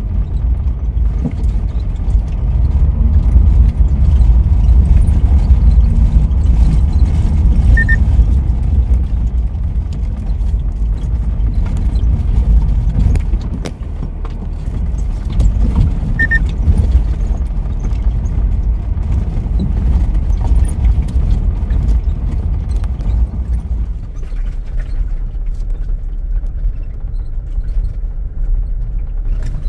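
Vehicle driving slowly over a rough dirt road: a steady low rumble of engine and tyres on dirt and gravel, with scattered knocks from the bumpy surface. The rumble eases somewhat near the end.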